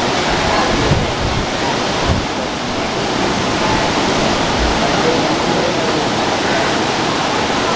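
Steady rushing of sea surf with faint voices of people talking, and a couple of low wind bumps on the microphone about one and two seconds in.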